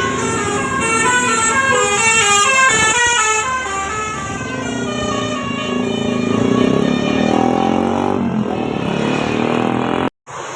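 Bus's telolet basuri multi-tone musical horn playing a tune of quick stepped notes in rising and falling runs, settling into longer held low notes later on; it cuts off suddenly near the end.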